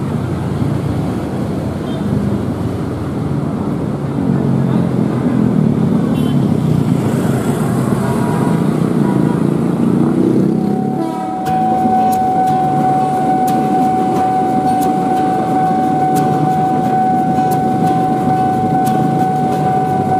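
Road traffic and voices at a railway level crossing. About eleven seconds in, the crossing's warning signal starts: a steady high tone that holds, with a regular clicking over it, ahead of an approaching train.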